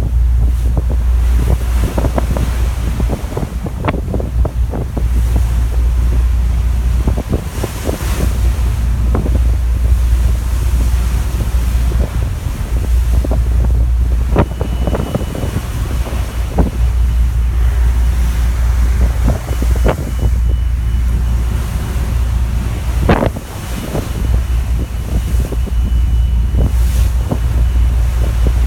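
Wind buffeting the microphone on the deck of a car ferry under way, a heavy low rumble with constant gusty crackle, over the rush of the sea.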